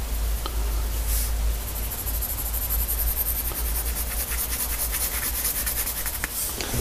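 Graphite pencil scratching across sketchbook paper in quick, repeated hatching strokes, the strokes coming faster about halfway through. A low steady hum lies underneath.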